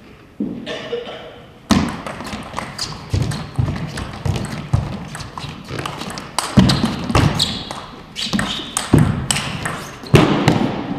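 Table tennis rally: the ball clicking sharply off the bats and table in quick alternation, mixed with heavy thumps of footwork on the court floor. The rally starts about a second and a half in and stops near the end.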